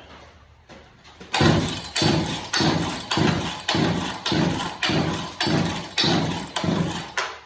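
Old Poulan chainsaw being pull-started again and again: about ten quick pulls, each a sudden burst of the engine turning over that fades as the cord runs out, without the engine catching.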